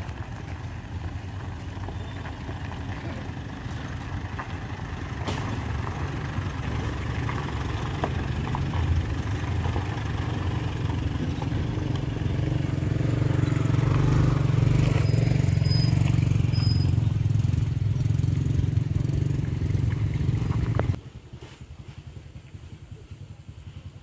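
A pickup truck's engine pulling under load up a steep unpaved hill, growing louder as it comes close and passes, then cutting off suddenly near the end.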